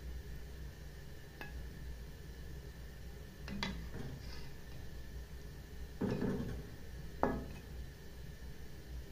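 A slotted serving spoon knocking and scraping against a metal cooking pot and a ceramic bowl as stew is dished out: a few separate clinks and knocks, the loudest two in the second half. A steady low hum runs underneath.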